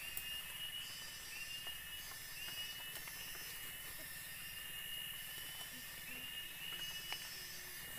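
Tropical forest insects buzzing in a steady high chorus, with a pulsing call that repeats a little faster than once a second.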